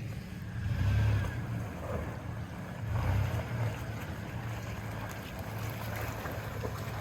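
Off-road vehicle's engine and drivetrain rumbling steadily while driving, swelling louder twice, about a second in and again about three seconds in.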